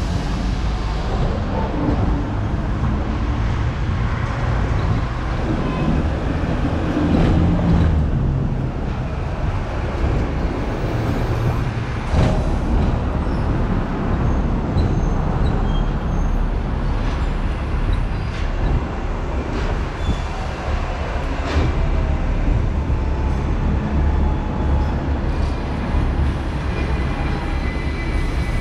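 Hong Kong electric double-decker tram running along street rails, heard from aboard: a steady low rumble of wheels and motor, with a few sharp clacks.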